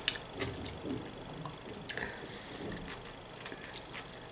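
Faint closed-mouth chewing of vegetable salad, with a few light clicks of a fork on the plate.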